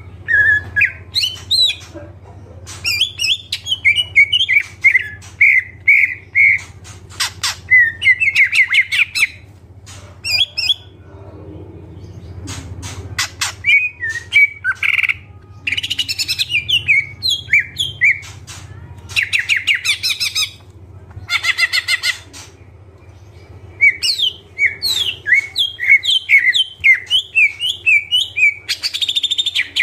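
Cucak ijo (green leafbird) singing a long, vigorous song: bursts of rapid repeated chirps and trills broken by short pauses, loaded with mimicked phrases (isian). A faint steady low hum runs underneath.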